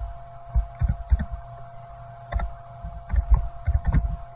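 Computer keyboard typing: irregular key taps with dull low thuds, a few at a time with short pauses, over a faint steady electrical hum.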